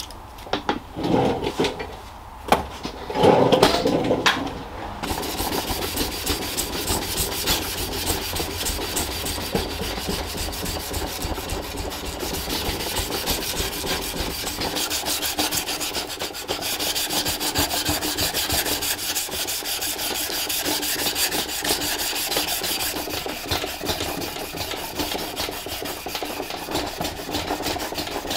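Hand sanding the convex-ground steel blade of a kitchen knife: sandpaper on a flat backing rubbed back and forth along the blade in quick, steady strokes. In the first few seconds, sandpaper is cut with scissors and handled before the sanding starts.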